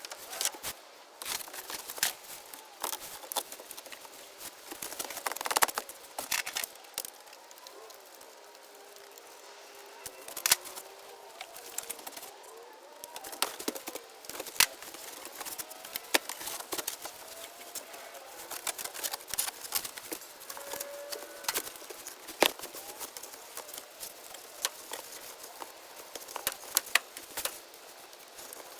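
Irregular sharp clicks and knocks of hand tools and fittings being handled while the copper refrigerant line set of a mini split is worked, at an uneven pace of several a second at times.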